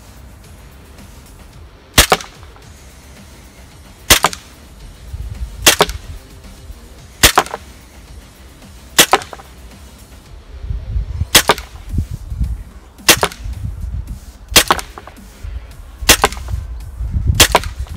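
Tokyo Marui M&P9 V-Custom gas blowback airsoft pistol fired ten times in slow single shots, about one and a half to two seconds apart, each a short sharp report as the slide cycles.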